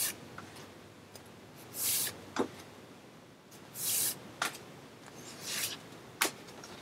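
Large photo cards being handled: short sliding rustles about every two seconds, with a few light taps in between.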